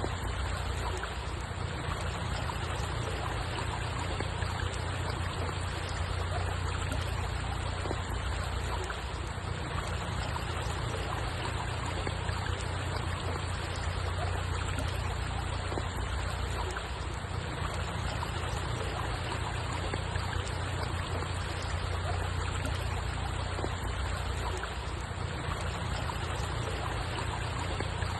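Steady running water, an even unbroken rush with a low rumble underneath and no separate splashes or calls.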